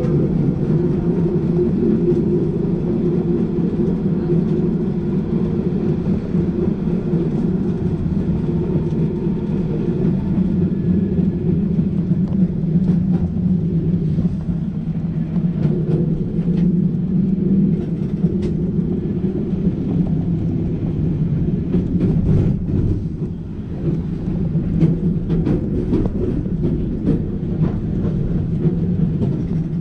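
Melbourne heritage streetcar running along street track: a steady rumble from its motors and wheels on the rails. Scattered sharp clicks come through in the second half.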